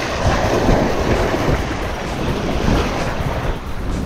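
Surf washing in against the rocks, a steady rushing of breaking waves, with wind buffeting the microphone.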